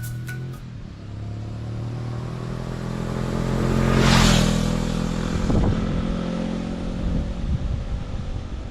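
Honda CB500F parallel-twin motorcycle engine running at a steady pitch, growing louder to a peak about four seconds in with a rush of noise, then easing back.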